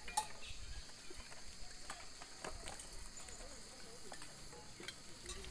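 Spoons and serving utensils clicking and clinking against metal alms bowls and dishes as food is served, over a steady high drone of crickets or other insects.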